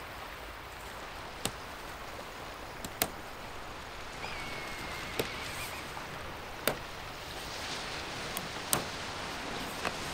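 Hooks of a Hilleberg Soulo tent snapping onto its poles as it is pitched: six or so sharp clicks a second or two apart, over a steady outdoor hiss.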